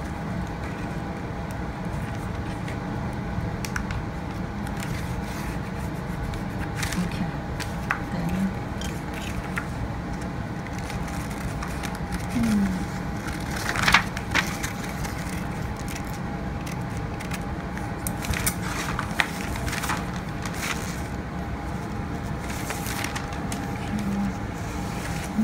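Pattern paper rustling and crackling as it is handled and marked with a pencil: scattered small clicks and rustles, with one louder crackle about halfway through, over a steady room hum.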